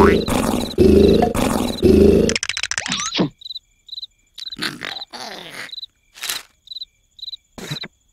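Cartoon snoring: loud, rumbling snores for the first two seconds or so, then they stop and a cricket chirps steadily, two or three chirps a second, with a few short noisy bursts in between.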